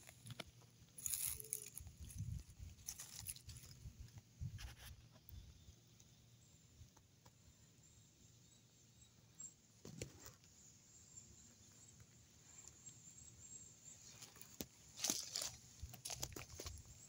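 Footsteps crunching and rustling through dry leaf litter and twigs, in irregular bursts during the first few seconds and again near the end, with a quieter stretch between.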